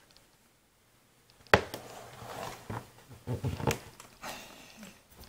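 Near silence, then about a second and a half in a sharp knock, followed by rustling and a few smaller knocks as things are handled on a wooden desk.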